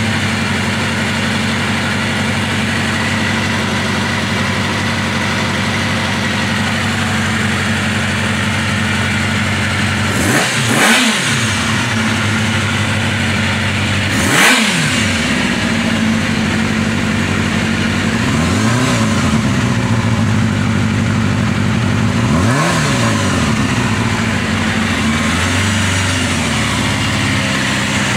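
Honda CBR250 MC19 Hurricane's 250cc inline-four running on its freshly tuned and synced Keihin carburetors. It idles steadily, then from about ten seconds in it is blipped about four times, each a quick rise and fall in revs.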